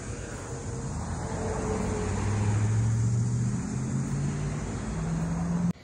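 Road traffic: a motor vehicle's engine hum swells to its loudest about two to three seconds in, its pitch stepping up a few times, then cuts off suddenly near the end.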